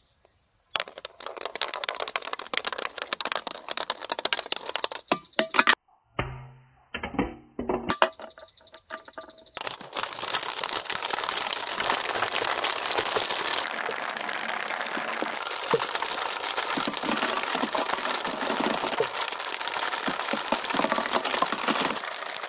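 Hollow plastic Monster Balls (toy Poké Balls) clattering and rolling in a split-bamboo half-pipe marble run: rapid clicking and knocking at first, broken briefly by a few lower ringing tones, then from about ten seconds in a steady, dense rolling rattle as a line of balls runs down the long bamboo chute.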